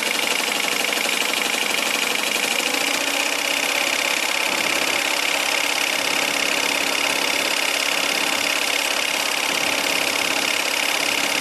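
3D-printed Pelton turbine spinning steadily under its water jet, a whirring run mixed with the hiss of the spray, while it belt-drives a 12-volt motor used as a generator. It picks up speed over the first few seconds as one heater load is taken off the generator.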